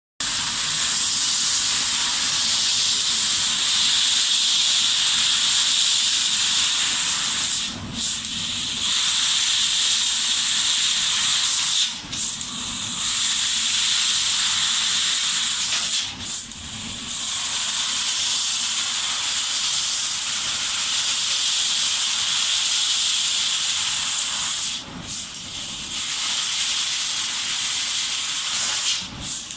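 Steady high-pitched hiss of a laser cutting machine's gas jet cutting sheet metal, dropping out briefly five times.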